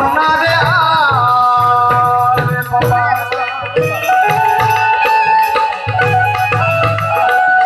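Live Gujarati santvani devotional folk music: held melodic notes with a sliding phrase about a second in, over a steady low hand-drum beat.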